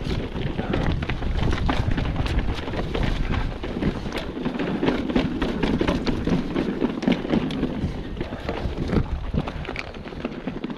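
Mountain bike descending a rocky trail, heard from the bike: tyres crunching over stone and gravel, with frequent rattling clicks from the bike. A low wind rumble on the microphone eases after about four seconds.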